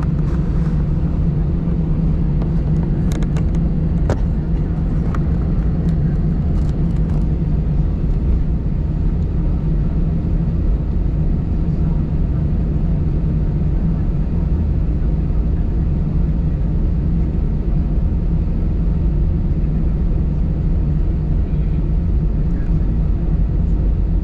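Steady cabin noise inside an Airbus A319 taxiing: a low engine hum and rumble. A few light clicks come a few seconds in.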